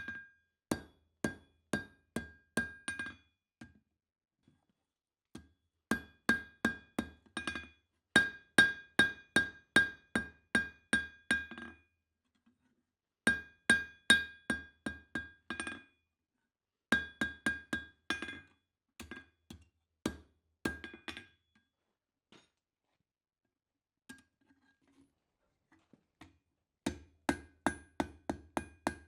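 Blacksmith's hammer striking steel on an anvil, forging a knife, in runs of about three blows a second, each blow with a bright metallic ring. The runs break off for pauses of a second to several seconds, the longest near the end.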